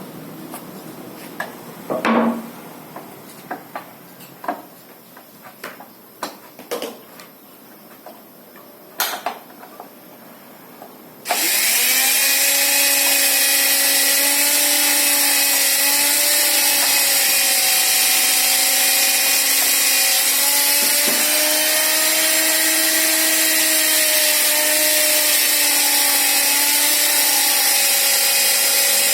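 Wipro 1800 W sliding circular saw: a few scattered knocks and clicks, then its electric motor switches on about a third of the way in, spins up quickly and runs steadily.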